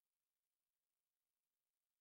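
Silence: no audible sound, only a faint digital noise floor.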